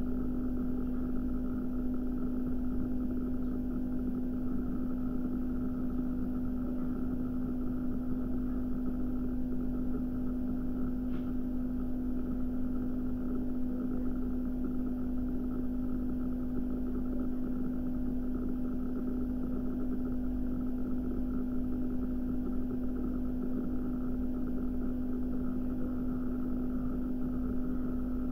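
A steady low hum with one constant tone and a low rumble beneath it, unchanging throughout.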